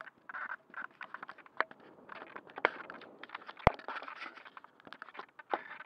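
Handling noise from the glider being worked on right by its onboard camera: irregular taps, clicks and scrapes against the fuselage, with a few sharper knocks, the loudest about three and a half seconds in.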